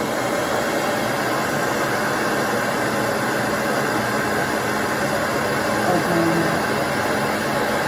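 Hair dryer blowing steadily into a cut plastic soda bottle wrapped around a lock of hair, as an attempt to curl it with the hot air.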